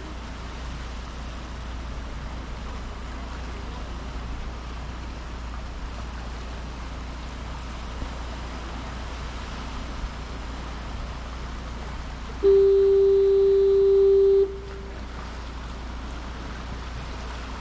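A lighthouse fog-signal horn sounds one steady, single-pitched blast of about two seconds, about twelve seconds in, over a constant wash of wind and sea.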